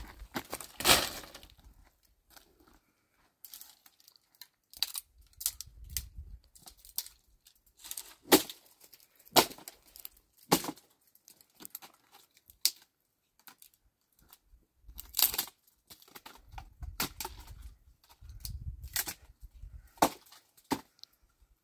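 Irregular sharp snaps and crackles of dry material being broken and crumpled by hand, with a low rumble of handling in places.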